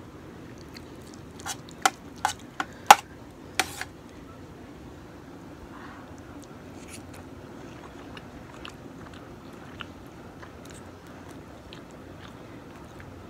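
A steel spoon clinking and scraping on a steel plate of rice and chaap: about seven sharp clicks in quick succession, the loudest near the third second. After that come quieter chewing and a few faint ticks over a steady low hum.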